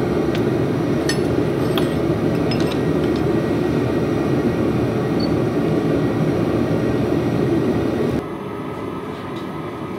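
Steady rushing noise of the forge burner running in the blacksmith shop while a freshly normalized steel knife blade cools in air, with a few faint light clinks in the first few seconds. About eight seconds in, the noise drops suddenly to a quieter background.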